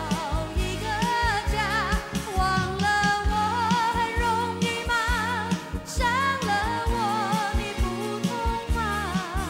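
Woman singing a Mandarin pop song with vibrato into a microphone, over a backing band with a steady drum beat.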